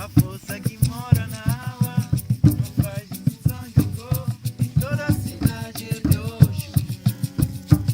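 Music: a fast, steady drumbeat with shaken rattles, and a sung melody over it.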